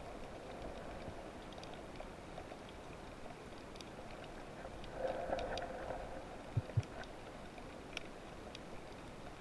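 Underwater ambience picked up by a camera in its waterproof housing: a steady low hiss with scattered sharp clicks, a brief swell of noise about five seconds in, and two low thumps in quick succession just after, the loudest sounds.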